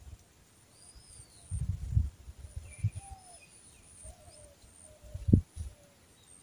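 Birds calling in a field: a few short, arching chirps and some lower gliding notes, over a faint high pulsing buzz. Low buffeting on the microphone cuts in, loudest about two seconds in and just after five seconds.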